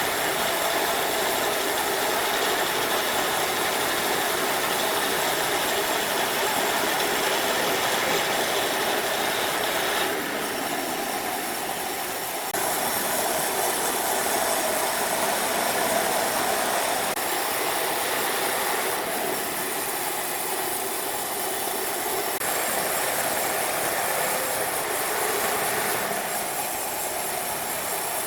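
Sawmill machinery running: a steady, noisy mechanical drone that shifts in level about ten seconds in and again a couple of seconds later.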